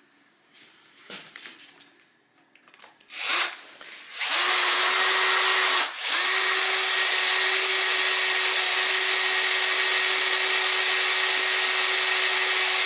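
Cordless drill boring into a damaged steel cylinder head bolt to drill its head off. After a few faint handling knocks, there is a short burst about three seconds in. Then the drill runs steadily at one even speed from about four seconds, with a brief break near six seconds.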